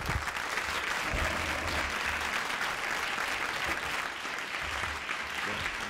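An audience applauding: steady, dense clapping from a full hall at the end of a lecture.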